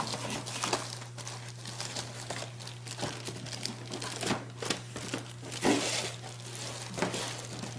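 Packaging crinkling and rustling as packaged phone cases are handled and taken out of a shipping box, in irregular crackly bursts.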